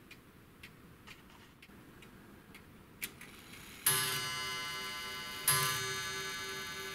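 Pendulum clock escapement ticking about twice a second, then the FMS Adler Gong's coiled spring gong struck twice, about a second and a half apart, each stroke ringing out with many tones and fading slowly.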